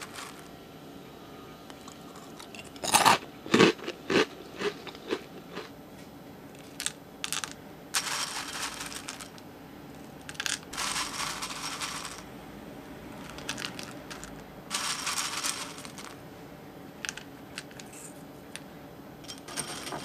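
Dry Fruit Loops cereal being handled: a quick run of sharp clicks a few seconds in as pieces drop and knock together, then three bursts of dry rustling, each about a second long.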